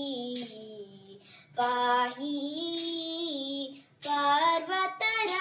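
A girl singing a Kannada devotional song to the goddess Gouri, holding and bending long notes in phrases with short breaks between them.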